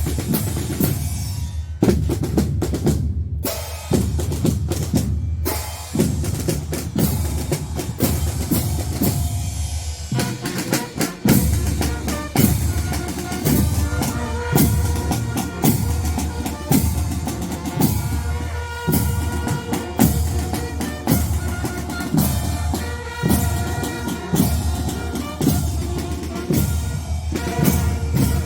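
Fanfare band's drum section playing a marching cadence on bass drums and snare drums, with snare rolls. From about twelve seconds in, held higher tones join the drumming.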